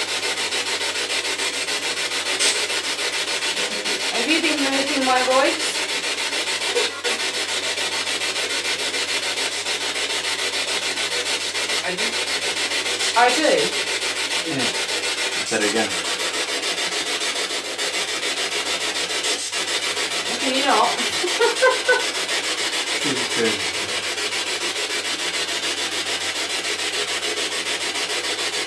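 Spirit box sweeping through radio frequencies: a loud, steady static hiss, broken a few times by brief snatches of garbled radio voice.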